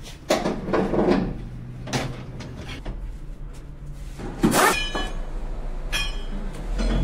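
Steel wrench scraping and clanking against the metal hub of a brake disc clamped in a vise: a scrape about half a second in, a light clink near two seconds, then two sharper metallic clanks that ring briefly, around four and a half and six seconds in.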